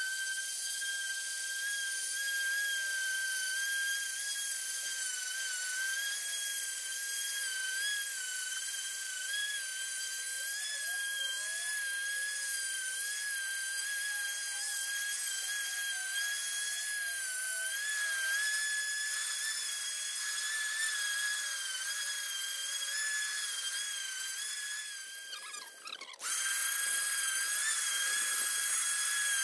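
Ryobi random orbital sander with 80-grit paper running steadily across weathered white mahogany timber, giving a high, slightly wavering whine. Near the end the sound dips and breaks off briefly, then the sander is running again.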